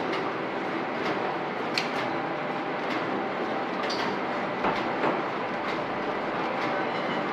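Cannon vertical form-fill-seal pouch packing machine with an auger powder filler running, making a steady mechanical noise with sharp clacks at uneven intervals of about a second as it turns out sealed pouches.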